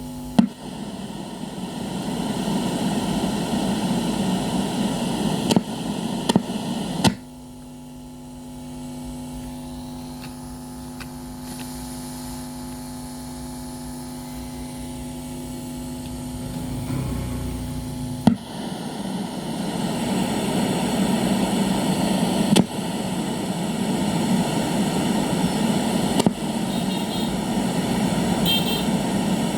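Sony CFS-1110S cassette radio's speaker putting out rushing static over a low hum, with sharp clicks as controls are switched. About seven seconds in it changes to a steady mains hum, and after about eighteen seconds it goes back to static.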